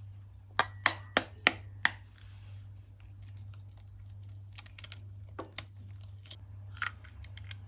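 An egg being cracked on the rim of a bowl: five sharp taps about a third of a second apart, then scattered lighter clicks and taps as it is opened into the mashed potato.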